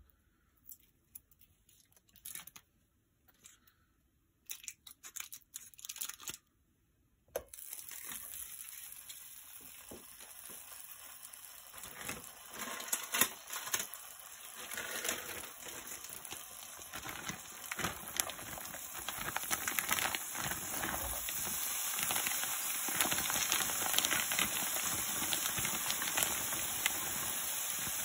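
A few scattered clicks. Then, about seven seconds in, an oiled nonstick frying pan starts sizzling and crackling, growing steadily louder as it heats.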